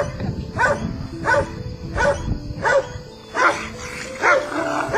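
Dog barking aggressively in a steady series, about one bark every 0.7 seconds, roused by a man staring it down.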